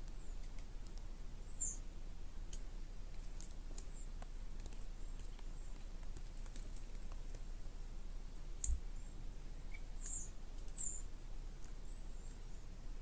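Summer woodland ambience heard from inside a tent: a low steady rumble with a few short, high bird chirps now and then, and scattered light ticks and clicks. A low thump comes about two-thirds of the way through.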